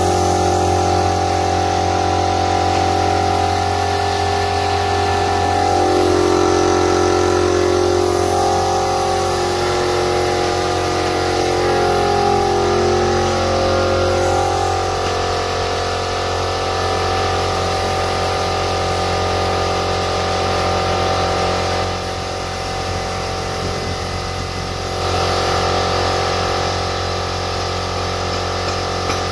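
Air-fed paint spray gun hissing as it sprays paint onto a motorcycle exhaust muffler, with an air compressor running steadily underneath. The sound drops a little about three quarters of the way through and then picks up again.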